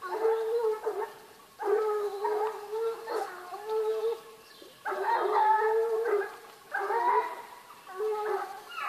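Hunting dogs baying at a wild boar: long, howling bays of about a second each, one after another with short gaps.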